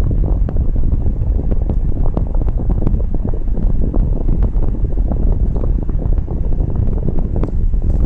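Air-conditioning blower air from a Nissan S13 Silvia's vents rushing against the microphone as a steady low rumble, with the engine idling and light irregular clicks. The R134a system with its retrofitted scroll compressor is cooling at idle.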